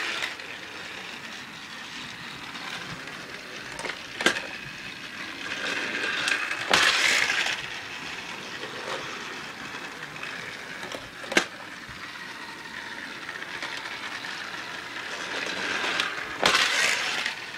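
Battery-powered Trackmaster Thomas and Gordon toy engines running on plastic track: a steady whirring rattle of small motors and wheels. It gets louder about seven seconds in and again near the end, with a few sharp clicks along the way.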